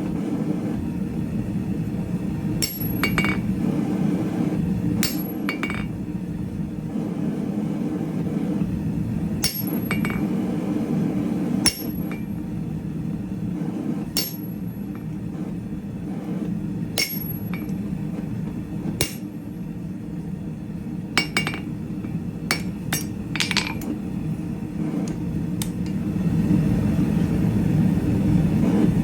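Hand hammer striking steel on an anvil during hand forging of square bar stock: single blows at irregular spacing, a second or more apart, each with a short metallic ring, over a steady low rushing noise.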